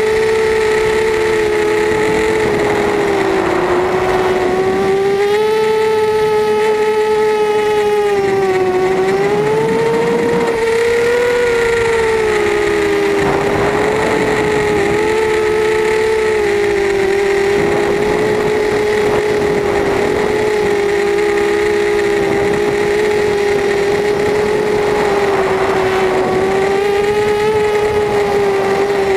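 FPV quadcopter's electric motors and propellers whining, heard on board the craft, with the pitch wavering up and down as the throttle changes. Around nine seconds in the pitch dips briefly, then climbs back.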